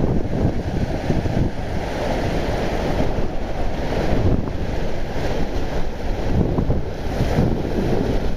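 Wind buffeting the microphone over small waves washing and breaking on a rocky shoreline, a steady rumbling noise.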